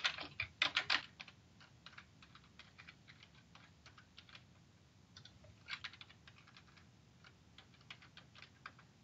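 Computer keyboard being typed on as a username and password are entered: quick, irregular runs of key clicks, louder in the first second and again about six seconds in.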